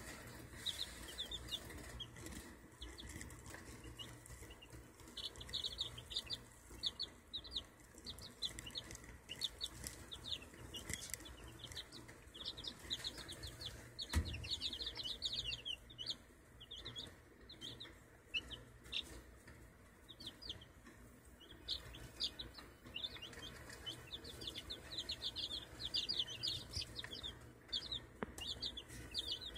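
Six-day-old chicks (Saipan jungle fowl, Old English game, Ameraucana and Phoenix crosses) peeping: rapid, high-pitched peeps coming in bouts, several birds at once. A single short knock about fourteen seconds in.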